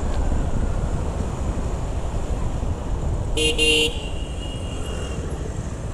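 Steady low rumble of a motorcycle riding through city traffic. A vehicle horn honks once, for about half a second, about three and a half seconds in.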